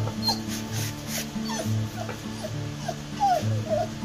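Rottweiler whining excitedly in short, high, falling whimpers, about two or three a second.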